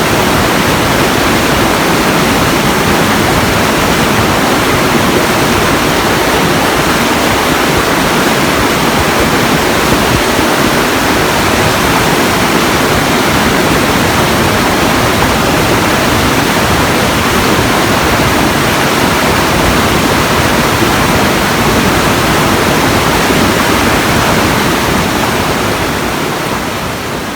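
Steady rushing water, an even roar with no distinct events, fading out near the end.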